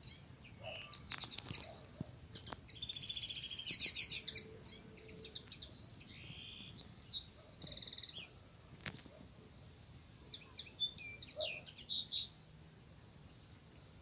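Bird singing: a loud, rapid run of repeated high notes about three seconds in, then shorter phrases of chirps and gliding whistles.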